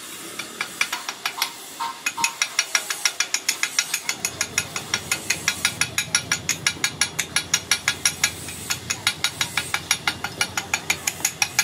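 Chipping hammer tapping slag off a fresh weld on a hydraulic jack's metal body: rapid, even metal-on-metal strikes. A few scattered taps come first, then a steady run of about six strikes a second from about two seconds in.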